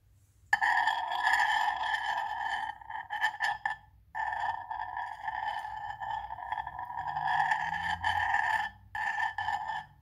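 Metal utensil scraping through melted bubblegum across a glass microwave turntable plate, giving a loud, steady high-pitched squeal in three long stretches, with a few short scrapes and taps in a gap about three seconds in.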